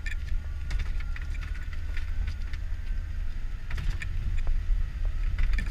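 Vehicle driving along a rough, muddy dirt track, heard from inside the cabin: a steady low engine and road rumble with frequent short clicks and knocks over the bumps.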